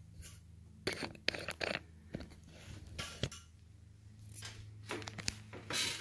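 Handling noise: scattered sharp clicks, taps and rustles as a phone camera is picked up and moved, with a louder knock about three seconds in, over a faint steady hum.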